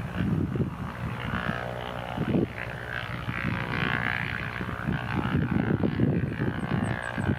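Lockheed CC-130J Hercules climbing out after takeoff: the low, crackling rumble of its four Rolls-Royce AE 2100 turboprop engines and six-blade propellers.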